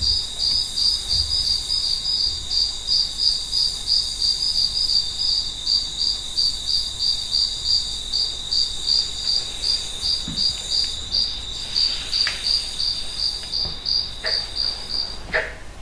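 Insect chirping in a steady rhythm, about three high chirps a second, that stops abruptly near the end, followed by a few soft knocks.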